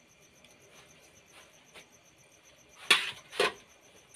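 Crickets chirping in a steady, fast pulsing trill, with two loud short noises about three seconds in, half a second apart.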